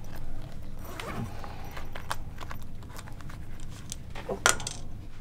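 Scattered knocks and clatters of objects being handled over a low steady hum, with one sharper, louder knock about four and a half seconds in.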